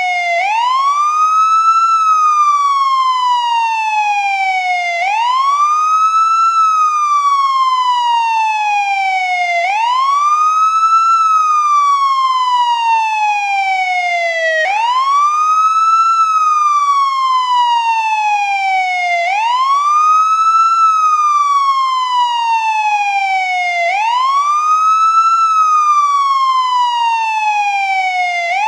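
American police siren on its wail setting: a single tone with many overtones that climbs quickly and then slides slowly back down, repeating about every four and a half seconds.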